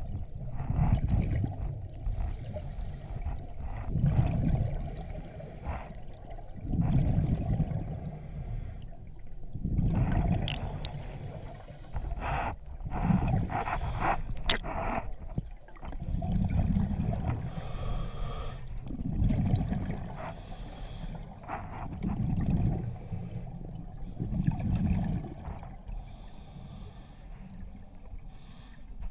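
Scuba diver breathing through a regulator underwater: a low rumbling burst of exhaled bubbles about every three seconds, with fainter hissing between, and a few sharp clicks about halfway through.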